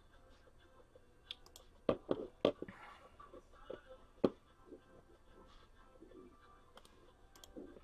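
A few scattered sharp clicks and light taps from a computer mouse and keyboard while a list is copied into an online randomizer. There is a small cluster about two seconds in and one louder click about four seconds in.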